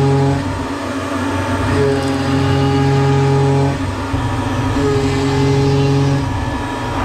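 Tormach 770M CNC mill roughing 6061 aluminum with an end mill: the spindle and cut run with a steady pitched hum and whine that comes and goes in passes of one to two seconds, three times, with short lulls between as the tool moves between cuts.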